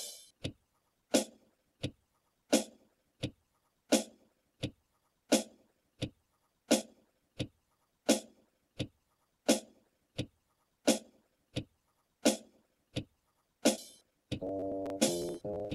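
Clock ticking: sharp ticks about 0.7 s apart, alternating louder and softer like a tick-tock, with dead silence between. Music comes back in about a second and a half before the end.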